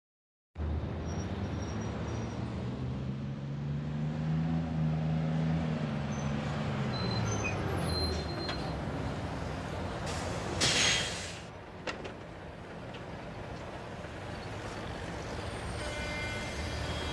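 City bus drawing up to a stop: a steady engine hum whose pitch rises and then falls, then a short loud hiss of the air brakes about eleven seconds in as it halts, followed by the bus idling.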